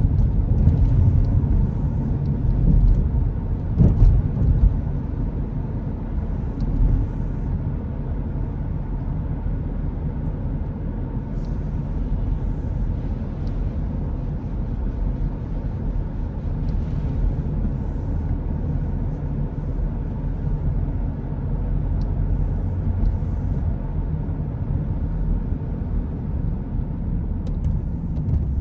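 Steady low rumble of a car driving along a road: tyre and engine noise, with a few faint ticks.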